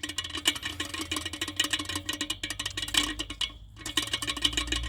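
A removed clutch part making a fast, irregular rattling click as it is turned, the noise that is its only fault. A low hum comes in about halfway through.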